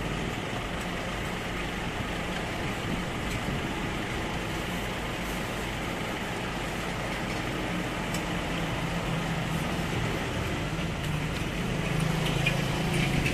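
Steady road traffic with the low hum of an idling engine, a little louder in the second half.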